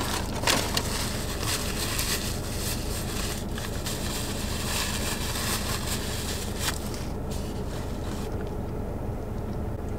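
Paper sandwich wrapper being crumpled and rustled in the hands, busiest in the first half and tapering off, over a steady low hum in the car cabin.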